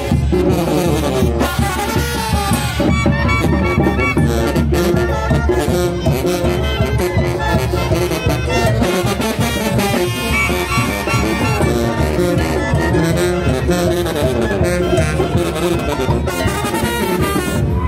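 A Oaxacan brass band playing loudly and without a break, with brass carrying the tune over a steady bass and drum beat.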